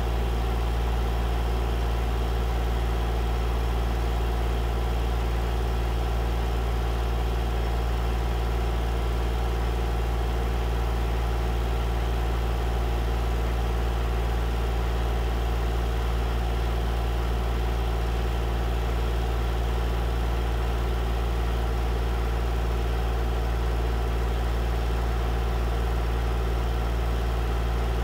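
A vehicle engine running steadily: a low, even drone that does not change.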